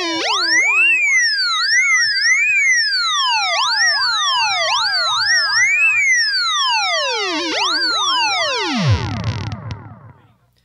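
Theremin guitar pedal putting out a pitched tone that glides up and down like a siren as a knob is turned, with delay repeats layering echoes of each sweep over one another. Near the end the tones drop steeply in pitch and fade away.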